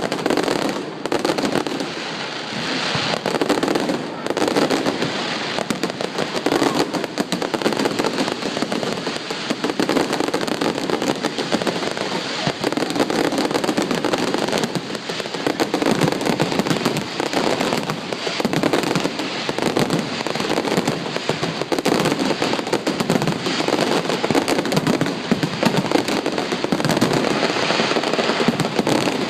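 Fireworks display: a dense, unbroken stream of bangs and crackling shells bursting in rapid succession.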